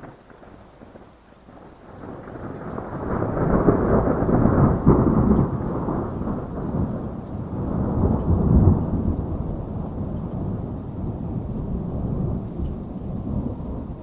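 Rolling thunder over steady rain: the low rumble swells about two seconds in, peaks twice, and slowly dies away.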